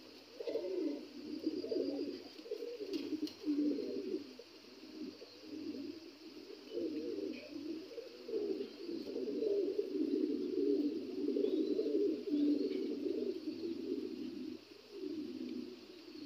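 Black Lahori pigeons cooing almost without pause, low rolling coos swelling and fading and overlapping one another.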